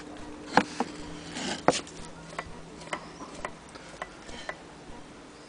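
Antique sewing machine's metal mechanism clicking as it is worked by hand: a few sharp clacks in the first two seconds, then a run of lighter ticks about two a second.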